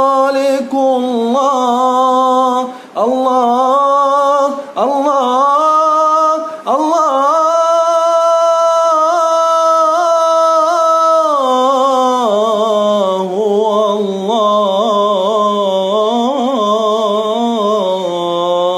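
Unaccompanied male voice singing an Arabic religious ode (inshad) in long melismatic phrases, with one long held note a third of the way in, then sinking to lower, ornamented notes near the end.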